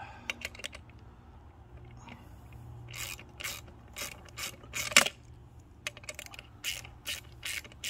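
Quarter-inch drive ratchet with a 13 mm socket clicking in a steady run of sharp clicks, about two a second, as a nut is tightened onto a wheel's axle bolt. A few lighter clicks of metal hardware come first.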